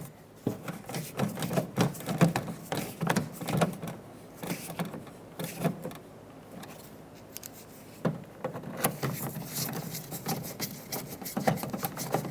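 Screwdriver driving two Phillips head screws into the plastic door handle trim: irregular clicking and tapping in two spells, with a quieter stretch in the middle.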